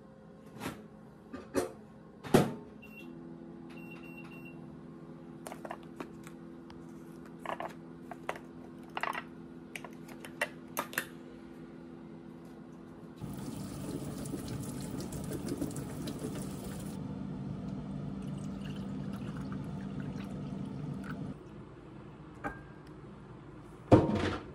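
Plastic food container lid pried off with a few sharp clicks, then a steady low hum. About halfway through a rushing noise like running water starts and lasts several seconds, and a loud knock comes near the end as a dish is set on the counter.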